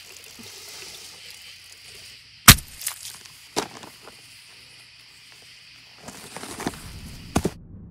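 One sharp, loud hit about two and a half seconds in, followed by a few lighter knocks over a steady hiss. Near the end comes rustling and footsteps in grass, then the sound cuts off suddenly.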